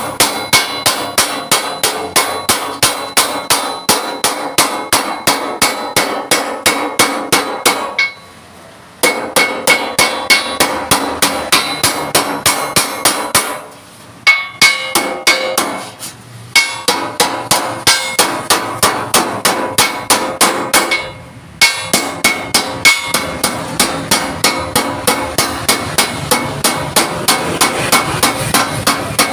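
Hammer striking steel sheet plate in a quick, steady run of ringing metallic blows, about three a second, stopping briefly a few times between runs. The plate is being beaten into shape for a panel.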